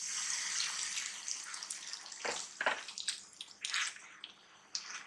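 Chickpea cooking water poured into a pan of fried masala and chickpeas, a steady splashing that fades out after about two seconds. Then a spatula knocks and scrapes in the pan a few times as the mix is stirred.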